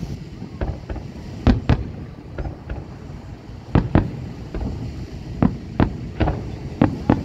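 Aerial firework shells bursting, about a dozen sharp bangs at irregular intervals, the loudest in pairs about a second and a half in and again about four seconds in, over a steady low rumble.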